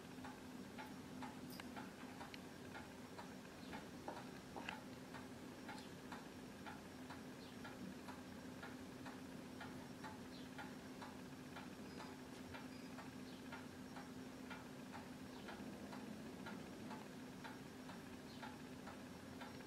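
Faint, steady ticking of a clock, about two ticks a second, over a low steady hum.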